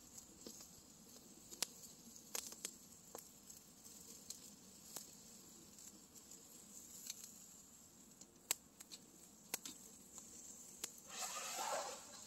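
Wood campfire crackling, with scattered sharp pops over a faint steady hiss, and a brief rustle near the end.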